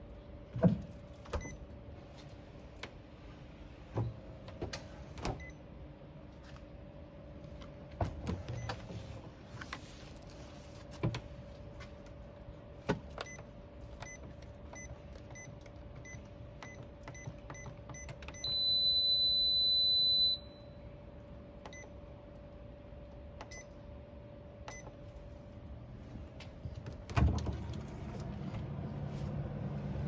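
Liebherr Premium NoFrost fridge's electronic button panel being pressed: scattered taps, then a run of about eight short beeps, one steady beep of about two seconds, and a few more short beeps. A steady low hum runs beneath, and near the end a knock is followed by a rising rumbling noise.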